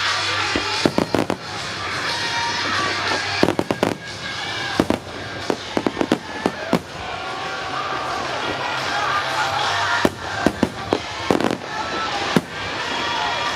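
Starmine fireworks barrage: shells bursting in several quick clusters of sharp bangs and pops, over continuous accompanying music.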